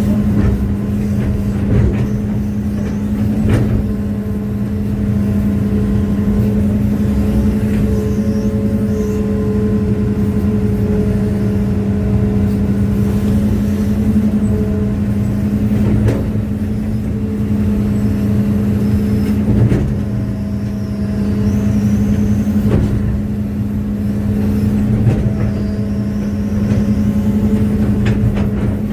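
Hitachi excavator's diesel engine running steadily, with a higher tone that comes and goes as the hydraulics take load and a few short knocks and clanks along the way.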